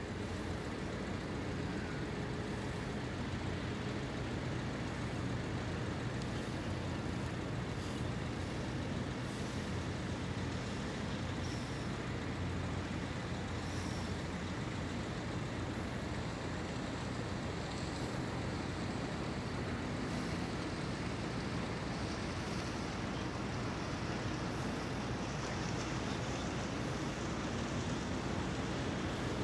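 Steady low engine rumble with a faint hiss over it, unchanging throughout.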